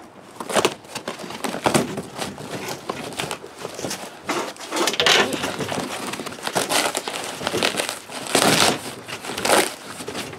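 Corrugated cardboard shipping box being cut with a knife and torn away from its foam packing insert: an irregular run of scraping, crackling and tearing noises, louder in a few bursts.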